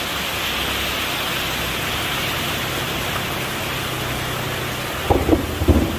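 Heavy rain pouring steadily onto a flooded street, with a few short knocks about five seconds in.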